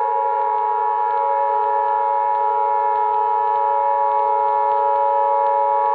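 Emergency Alert System-style attention tone: a synthesized alarm of several steady tones sounding together, held unbroken.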